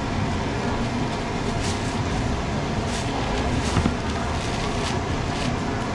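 Steady background din of a busy street market: a low rumble of traffic or machinery, with a few faint sharp clicks, such as a knife or plastic bags being handled.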